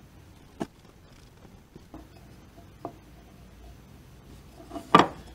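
Hands handling a hollow 3D-printed plastic end cap while threading string through it: a few light clicks and taps, then one sharper plastic knock near the end.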